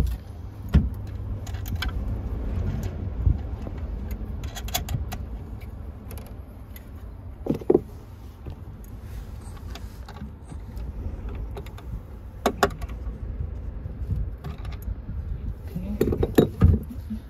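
Scattered metallic clicks and clunks of tools and hardware being handled while connecting a battery bank's main negative cable at the BMS, with a cluster of knocks near the end, over a steady low rumble.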